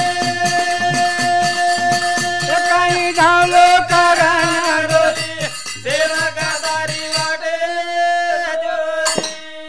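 Lambada (Banjara) folk narrative music: long held melodic notes over a steady drum beat. The beat drops out about seven seconds in while a held note carries on.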